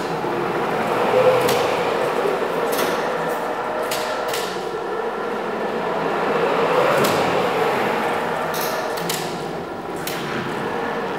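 BT CBE 2.0T electric three-wheel counterbalance forklift driving and turning: a steady motor hum that swells twice, with a string of sharp clicks and knocks.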